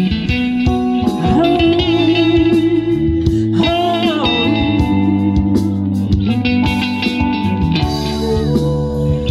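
Funk band playing an instrumental passage: an electric guitar lead with bent, wavering notes over bass and drums.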